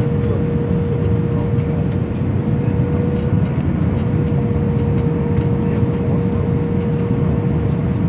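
Airliner cabin noise on approach with the flaps extended: a steady, loud rumble of the jet engines and airflow, with a constant hum running through it.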